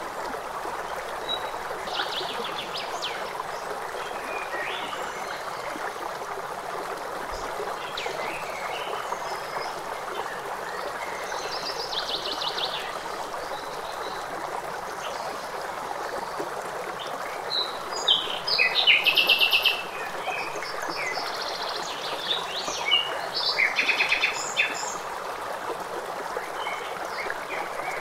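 Running stream with birds chirping: a steady rush of water under scattered bird calls, which grow louder in two spells of rapid chirping about two-thirds of the way through.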